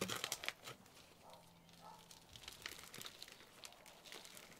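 Thin black plastic plant pot crinkling and clicking as hands squeeze and tap it upside down to loosen a tightly rooted cutting with its soil. The crackle is loudest in the first half second, then drops to faint scattered clicks.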